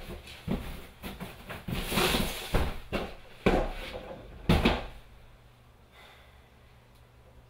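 Belongings being handled by hand and set down: a run of knocks and thumps with rustling, the loudest knock about four and a half seconds in, after which only a faint room hum remains.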